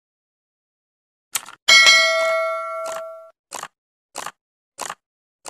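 Subscribe-button animation sound effect: a mouse click, then a bright bell ding that rings out and fades over about a second and a half, followed by a run of short clicks about every 0.6 seconds.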